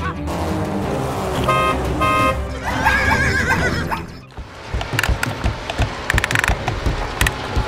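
A horn sound effect beeps twice, about a second and a half and two seconds in, over background music. After a brief dip near the middle, music with a steady clicking beat takes over.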